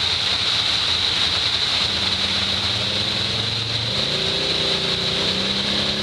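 Off-road vehicle engine running, its pitch stepping up about two seconds in and again about four seconds in, over a steady hiss.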